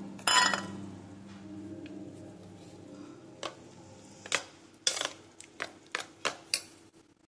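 Metal spoon stirring thick yogurt raita in a steel bowl: one louder scrape just after the start, then a string of light clicks of the spoon against the bowl's side in the second half.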